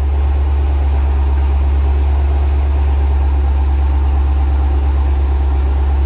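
Dodge Challenger 6.4-litre HEMI V8 idling steadily. The engine has a misfire on cylinder 3, which the scan tool is counting.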